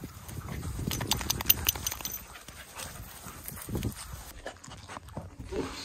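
Dogs moving about close by, with a flurry of clicks and rustles about a second in and scattered smaller clicks after.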